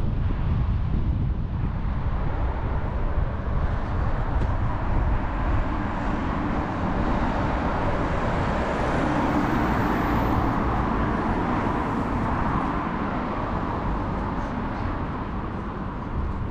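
Road traffic going by, a steady rumble and hiss of vehicles that swells as one passes close about midway, then eases off.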